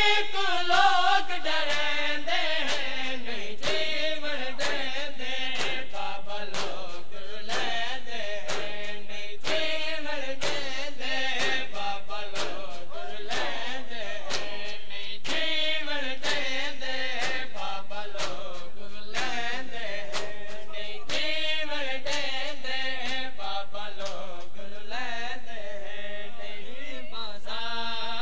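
Male voices chanting a noha, a Shia lament, in a group. It is set to the mourners' rhythmic chest-beating (matam): sharp slaps, about two a second.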